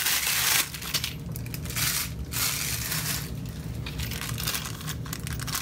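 Plastic packaging crinkling and rustling as a small clear bag of parts is handled and pulled from a black plastic mailer bag, densest in the first half second and then in shorter crinkles. A steady low hum runs underneath.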